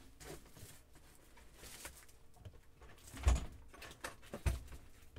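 Faint handling noises off the tabletop with two soft thumps, the first and louder about three seconds in, the second a second later, as things are moved and set down on the table.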